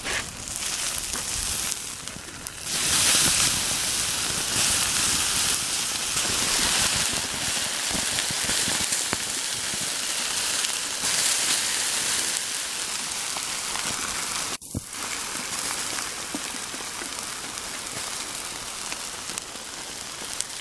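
Burnt-out plastic motorcycle side case smouldering after an electrical fire, giving a steady crackling sizzle that grows louder about three seconds in.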